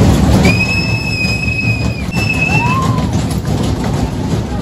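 Loud fairground din with a dense low rumble throughout. Over it, a high steady tone holds for about a second and a half, then a shorter one follows, with a brief rising-and-falling note just after.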